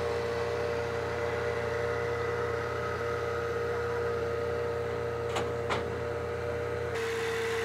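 Small outboard motor running steadily at low speed, a constant hum, with two short clicks about five and a half seconds in.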